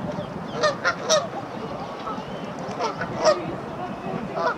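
Waterfowl giving about six short, loud calls, in an uneven run: three close together about a second in, two more near three seconds, and one near the end.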